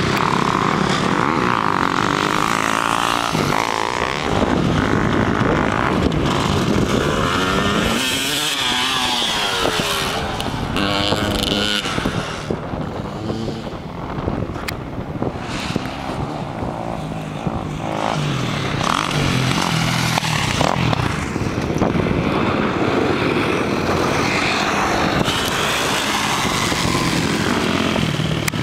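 Dirt bike engine revving up and down as it accelerates and corners on a dirt track, its pitch rising and falling repeatedly; it grows fainter for a few seconds in the middle, then louder again.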